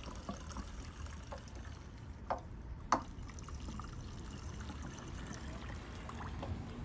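Gasoline pouring from a gas can into the pressure washer engine's fuel tank, a steady soft pour with two light clicks about two and three seconds in.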